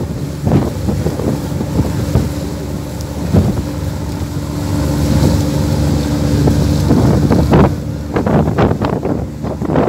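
A boat's engine running with a steady low hum, under heavy wind buffeting on the microphone.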